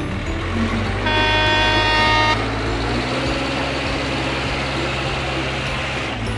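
Truck engine sound effect running steadily with a low rumble, with one horn honk starting about a second in and lasting about a second.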